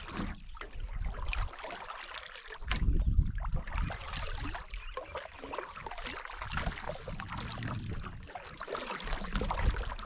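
Canoe paddle strokes: a single-blade paddle dipping and pulling through calm lake water, with dripping and swirling water around the blade and hull. One stroke about three seconds in is louder than the rest.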